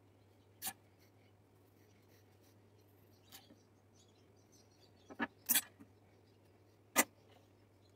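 A few sharp clicks and taps of steel marking tools, a steel rule and square and a pencil, being handled and set down on a bandsaw's metal table, the loudest near the end, over a faint steady hum.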